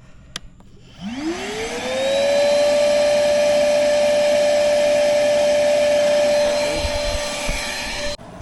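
Wet/dry shop vac starting up and sucking on a clogged AC condensate drain line. Its motor winds up to a steady high whine within a second over a rush of air, then cuts off suddenly near the end.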